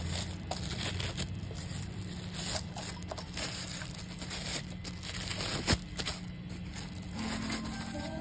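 Thin plastic bag crinkling and rustling as a guitar effects pedal is slid into it, with one sharp knock a little past the middle.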